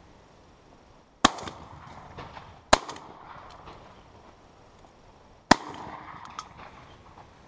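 Three shotgun shots, the first two about a second and a half apart and the third nearly three seconds later, each followed by a short dying echo.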